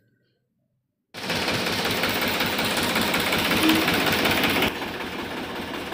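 About a second of silence, then a Balwan 450 tractor's diesel engine running with a fast, dense clatter, heard close up, which drops a little in level near the end. The engine is running to test a newly fitted hydraulic pump.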